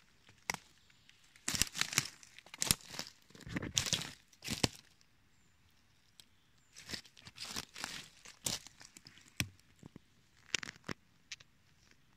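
Dry fallen leaves and twigs on the forest floor crackling and rustling as they are stepped on or disturbed, in irregular clusters of sharp crunches with a short quiet spell about halfway through.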